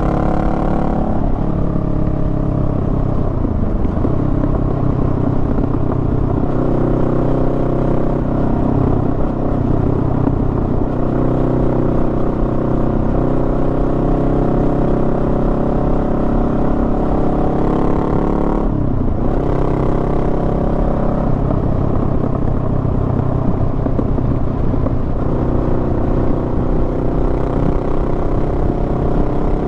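Honda Rebel 500's parallel-twin engine running as the motorcycle rides along, its pitch rising and falling with the throttle. About two-thirds of the way through the engine note dips sharply, as on a gear change or closing the throttle, then climbs again.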